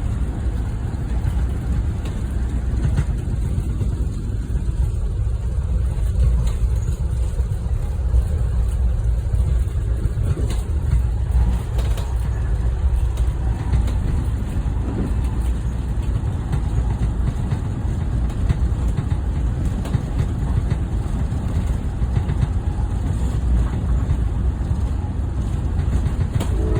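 Steady low rumble of a moving train heard from on board, with a few faint clicks.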